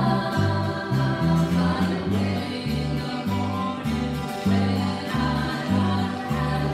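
Three acoustic guitars strummed together while voices sing a slow song, with bass notes falling on a regular beat.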